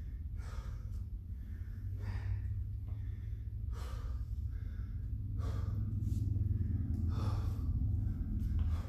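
A man breathing hard and deep, about one breath a second: he is winded from the workout and catching his breath between dumbbell sets. A steady low hum runs underneath.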